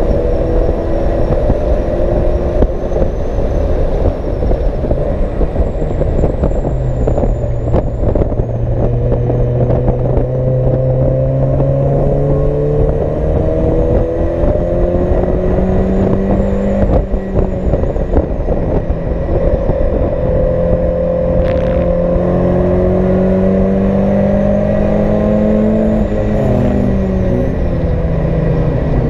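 Race car engine heard from inside the cockpit at speed, running hard with its revs climbing and falling back several times as the car is driven around the circuit.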